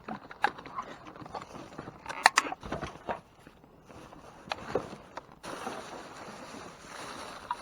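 Rummaging through trash bags and food packages in a dumpster: scattered knocks and plastic crinkles, the sharpest knock a little over two seconds in, then a steady hiss from about halfway through.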